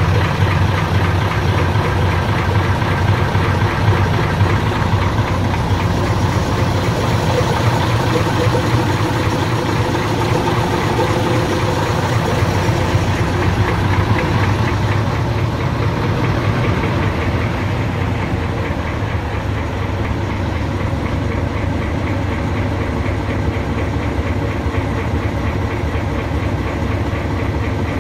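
Class 04 diesel shunter's Gardner 8L3 engine idling steadily with an even diesel knock, warming up after a cold start. It gets a little quieter in the last third.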